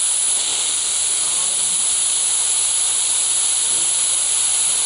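Tiny hydrogen-oxygen rocket engine, fed with gas from a water-electrolysis chamber, burning with a steady, even hiss of sustained combustion. It is running at only about 6 psi of chamber pressure, not enough for supersonic flow out of the nozzle.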